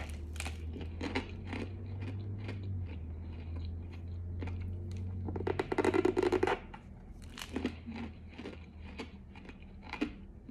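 Close-up crunching and chewing of a pressed cornstarch mix: dense, irregular crackling bites, loudest about six seconds in. A low steady hum underneath stops about two-thirds of the way through.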